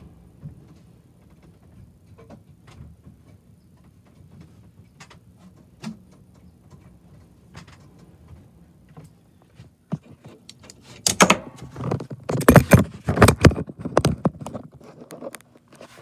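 A faint low hum with scattered light ticks, then about eleven seconds in a loud spell of rattling and knocking that lasts about four seconds.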